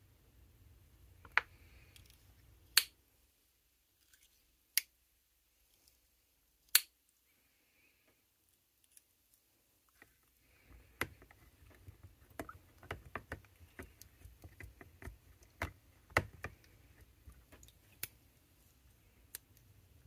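Vintage Victorinox 84mm Camper Swiss Army knife being worked to free its tools during cleaning, its springs giving sharp snaps. A few single clicks come about two seconds apart, then a pause. Later the knife is worked under soapy water, with water sloshing and a quicker run of clicks.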